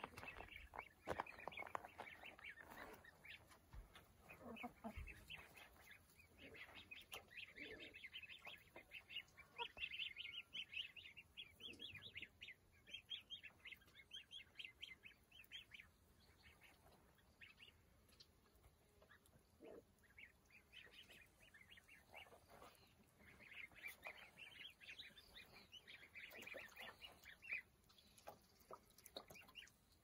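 Goslings peeping: many short, high chirps in quick overlapping runs, faint, thinning out for a while around the middle before picking up again.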